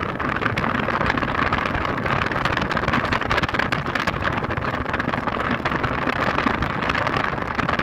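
Steady rushing road and wind noise of a moving vehicle, heard from aboard it.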